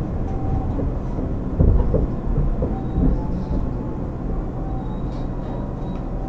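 Running sound inside a JR West 205 series commuter train's motor car (MoHa 205-103): a steady low rumble of wheels on rail, with a few knocks from rail joints about one and a half to two and a half seconds in.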